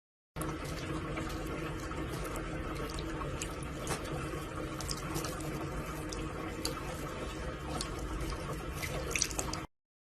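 Steady rush of running water with faint clicks now and then. It starts suddenly just after the start and cuts off shortly before the end.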